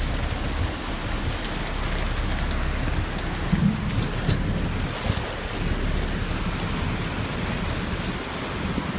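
Steady rushing roar of a large waterfall with wind-blown rain and spray, broken by irregular low thumps of wind buffeting the microphone.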